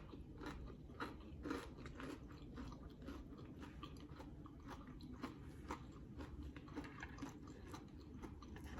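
Close-up chewing of crispy air-fried potato rounds: a run of small, irregular crunches and crackles.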